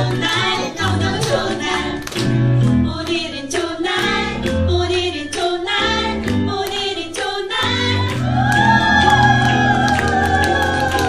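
A musical-theatre song with a group of voices singing over a backing track with a steady bass line; a long held note comes in about eight seconds in.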